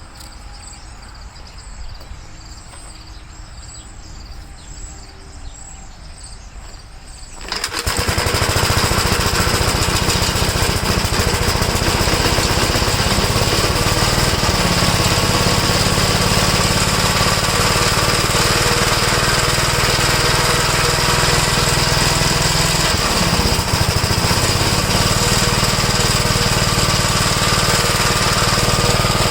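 Faint crickets chirping, then about seven and a half seconds in a 1969 Gravely L walk-behind tractor's single-cylinder engine comes in suddenly and runs steadily and loud, now firing after its no-spark repair.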